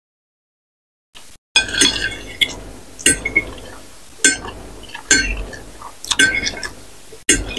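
Metal spoon and fork scraping and clinking against a ceramic plate, gathering up leftover sauce, in a string of sharp strokes that start after about a second and a half of silence.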